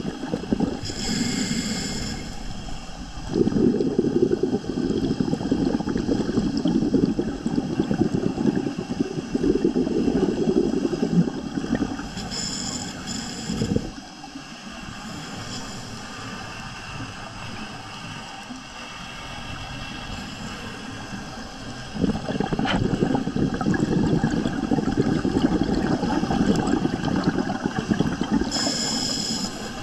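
Scuba diver breathing through a regulator underwater: three short hissing inhales, each followed by several seconds of bubbling exhale.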